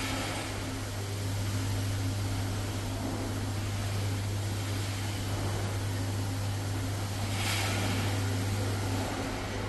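Steady low machine hum under an even hiss, with a short louder rush of hiss about seven and a half seconds in.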